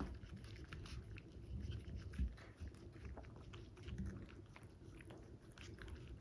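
Toy poodle eating cake, close to the microphone: many small, irregular wet clicks of licking and chewing.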